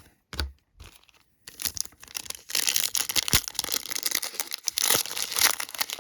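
Foil wrapper of a trading-card pack being torn open and crinkled, a dense crackling rustle starting about a second and a half in, after a couple of light knocks.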